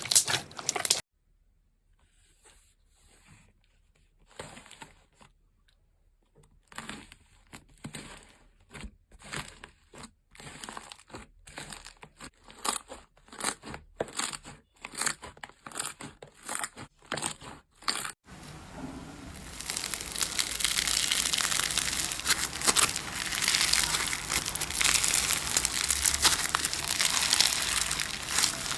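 Slime being pressed and poked: a quiet patch with faint sounds, then a run of sharp sticky clicks and pops, and after a cut a dense, continuous crinkling crackle.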